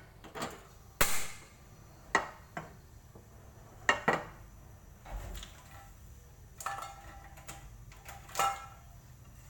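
Light knocks and clinks of kitchen utensils and containers being handled beside a frying pan, about ten short separate taps scattered irregularly, with no sizzling.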